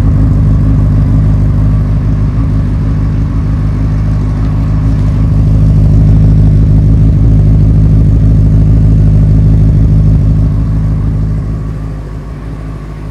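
Benelli TNT 600's 600 cc inline-four engine idling steadily through its stock exhausts, a little quieter near the end.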